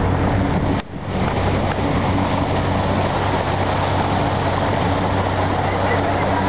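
Motorboat engine running steadily at a constant speed, a low even hum under wind and water noise, with a brief drop in level about a second in.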